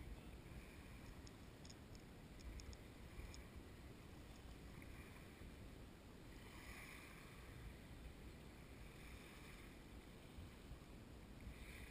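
Near silence: faint steady outdoor background noise with a low rumble, and a few faint ticks in the first few seconds.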